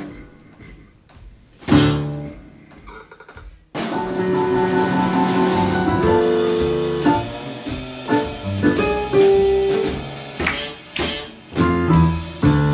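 Quiet at first, then one hit that rings out about two seconds in. From about four seconds in, a small jazz band of piano, upright bass and drums plays a blues.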